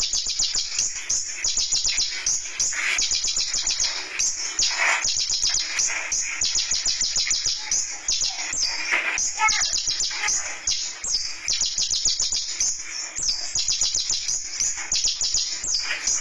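Konin (kolibri ninja, brown-throated sunbird) singing nonstop: a rapid run of high, sharp chirps and trills with barely a pause.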